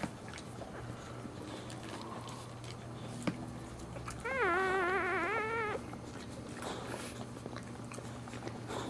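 A dog whining: one wavering, high-pitched cry about a second and a half long, starting about four seconds in, over a steady low hum.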